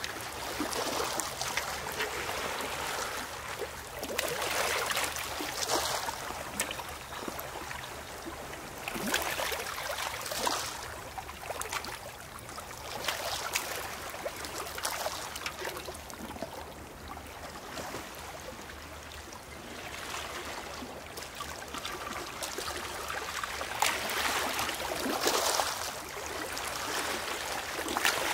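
Small sea waves washing in and draining back among pebbles at the water's edge, a steady hiss that swells and fades every few seconds.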